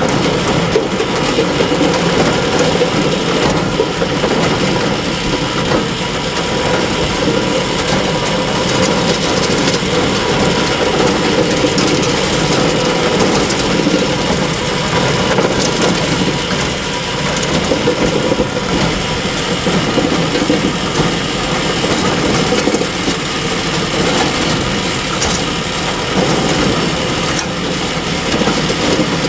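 Bale elevator running steadily, a continuous mechanical drone that does not let up.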